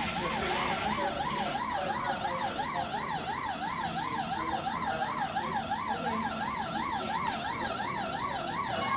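Electronic siren sounding a fast yelp: one high tone warbling up and down about three or four times a second, at a steady level.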